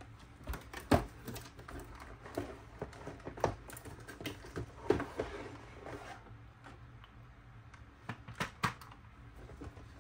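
A cardboard toy box and its plastic parts being handled and unpacked: rustling with irregular clicks and knocks, the sharpest about a second in.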